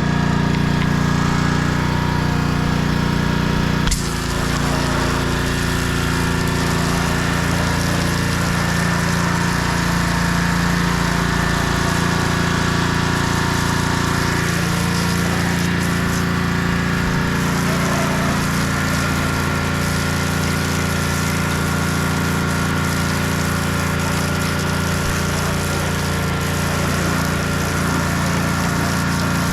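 Gas pressure washer's small engine running steadily, with a sharp click and a slight drop in level about four seconds in.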